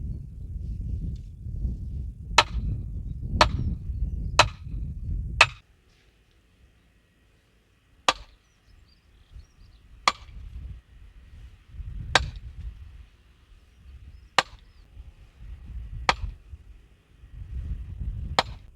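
Sledgehammer striking the top of a fence post to drive it into the ground: ten sharp blows, the first four about a second apart, then after a short gap six slower ones about two seconds apart.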